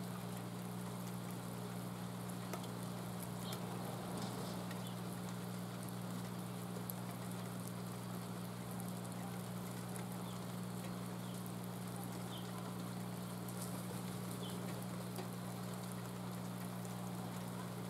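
Steady patter of light rain falling, with scattered small drip ticks and a steady low hum underneath.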